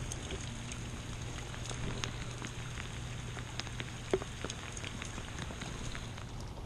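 Rain falling, with single drops ticking at irregular moments over a steady hiss. A steady low hum runs underneath.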